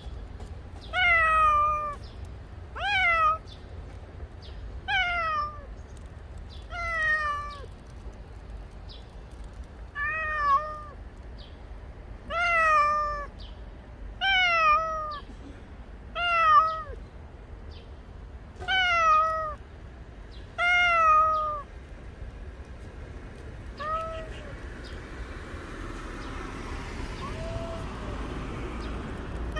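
Tabby cat meowing over and over, about one meow every two seconds, each call falling in pitch. After about twenty seconds the meows become fainter and further apart.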